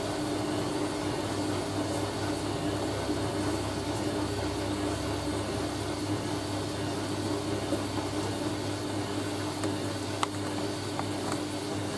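Hoover A3060 Electronic 1100 washing machine running with a steady hum, its motor turning the drum at distribute speed to even out an unbalanced load before the spin. A light click about ten seconds in.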